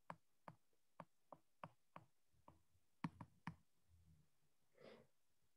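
Faint, irregular clicks of a stylus tip tapping a tablet screen as words are handwritten, about two a second.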